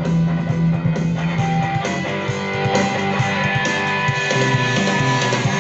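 Guitar-led rock music with strumming and a steady bass line, streamed over Bluetooth from a phone and playing through a refurbished Ford car radio's new amplifier and speaker.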